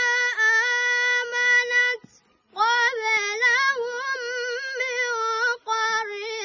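A young boy reciting the Quran (qirat) unaccompanied in a high, melodic voice, drawing out long ornamented notes. He pauses briefly for breath about two seconds in and again near the end.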